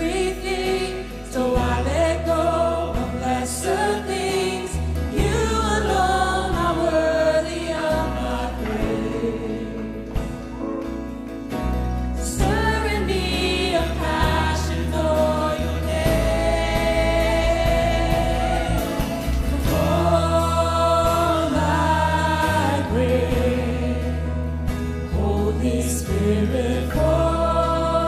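Live worship band playing a slow song: several women singing the melody together over keyboard, bass guitar and acoustic guitar, with long held bass notes changing every few seconds.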